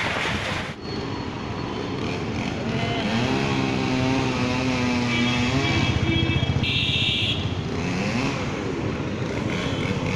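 Road traffic in heavy rain: a motor vehicle's engine running close by over a steady hiss of rain and wet tyres. Its pitch climbs near the end, and a couple of short, high horn-like beeps sound around the middle.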